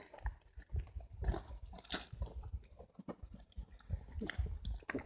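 A person biting and chewing snake meat close to the microphone, in irregular wet crunches and clicks.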